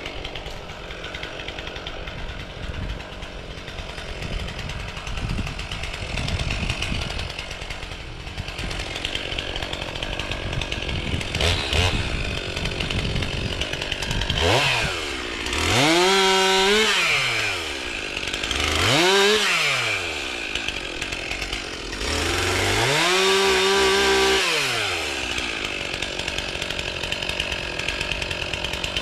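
Chainsaw running at idle, then revved up three times as it cuts into downed trees. Each time the engine note climbs sharply, holds high while cutting, and drops back to idle; the third cut is the longest.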